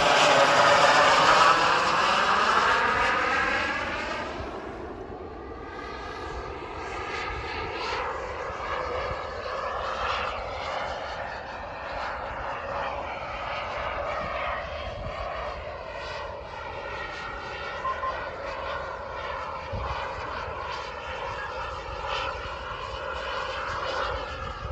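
Behotec 220 model jet turbine of an RC F-4 Phantom flying by, a loud rushing whine whose pitch falls as it passes in the first few seconds. It then drops to a fainter steady rush as the jet flies on at a distance.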